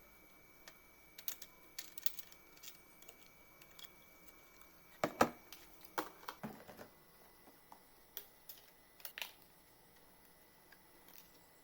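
Irregular light clicks and taps of small computer parts and packaging being handled by hand, with a louder cluster of knocks about five seconds in and another pair about nine seconds in.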